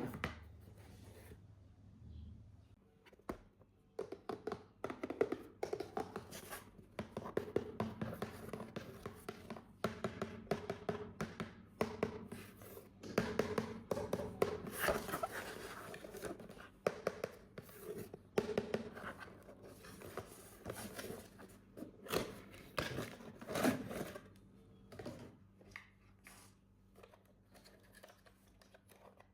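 Hands unpacking and handling a toy: packaging rustling and tearing, with scattered taps and thunks as parts are set down and handled.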